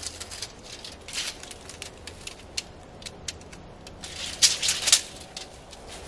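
Dry leaf litter crackling and rustling as a person shifts and steps about at the base of a tree, with a louder run of crunches about four and a half seconds in.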